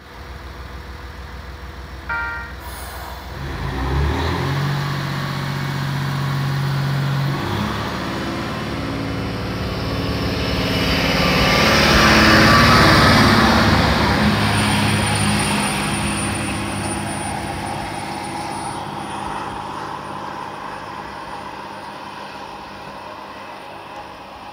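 JR Hokkaido H100 diesel-electric railcar pulling out of the station. A brief high tone sounds about two seconds in. Its diesel engine then runs up in steps as it accelerates, the noise grows loudest as it passes close by around halfway, and it fades as it pulls away, a thin high whine lingering.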